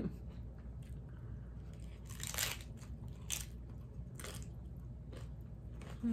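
Close-up crunching of a hard-shell ground-beef taco being bitten and chewed, a few separate crunches roughly a second apart, the loudest about two seconds in.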